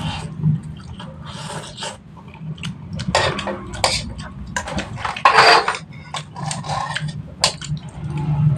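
Close-up eating sounds of instant noodles: slurping and chewing mixed with a metal spoon clicking and scraping in a wok. They come as irregular short strokes, with one longer, louder slurp-like rush about five seconds in.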